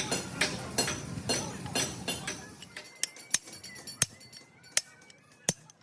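Sharp metallic clinks and taps of tools on gearbox parts: a quick steady run of taps at first, then separate single clinks about once a second.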